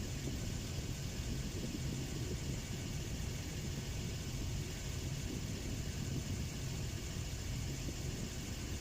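Toyota Land Cruiser 60's engine running steadily, with no revving or changes.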